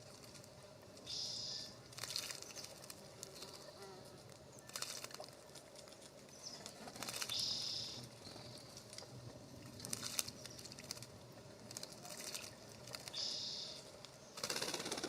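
Small birds splashing and fluttering their wings in a bird bath, in several short bouts. A short high note sounds three times, about six seconds apart.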